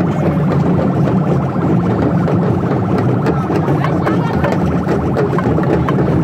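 Dense noise of a large street crowd, many voices overlapping, over a steady low hum.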